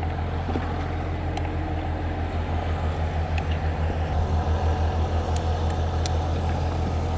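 An engine idling steadily with an even low pulse, with a few light clicks and taps over it.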